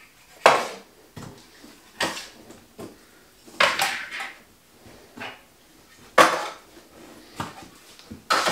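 Small plastic model-railway houses being set down one after another on a wooden shelf, with light handling of cardboard boxes: a series of separate knocks and clatters about a second apart.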